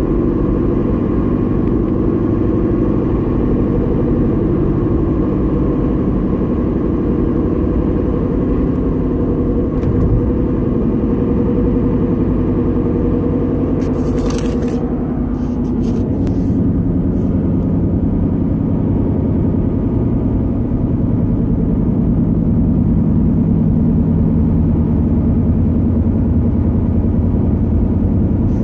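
2011 Honda Civic running with a steady low hum and rumble, the humming noise the owner is trying to have diagnosed. A few brief clicks come about halfway through.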